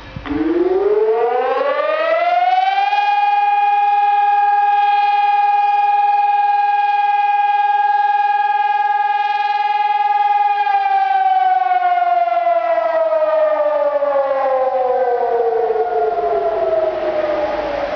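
PAVIAN 1200 civil-defence siren sounding a test alarm. Its wail rises in pitch over the first few seconds, holds a steady tone, then slowly falls away over the last seven seconds or so.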